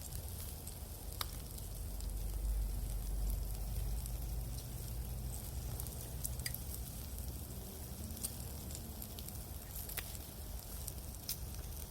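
Pork belly sizzling on a grate over a wood campfire, its fat melting and dripping, with a steady hiss, a low rumble underneath and a few sharp crackling pops from the fire.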